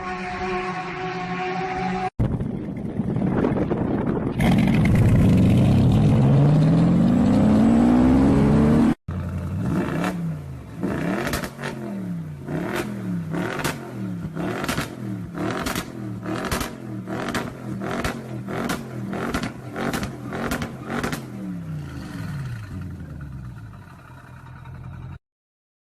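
Loud sports-car exhausts in quick succession. An engine runs steadily, then one revs hard with rising pitch, then an engine is blipped over and over, about once a second, with sharp cracks from the exhaust. The sound cuts off abruptly near the end.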